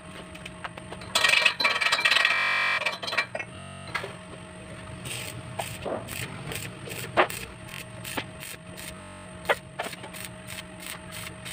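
Stick (arc) welding on galvanized steel pipe: a harsh burst of noise for about two seconds near the start, then the arc crackling and sputtering irregularly from about five seconds in.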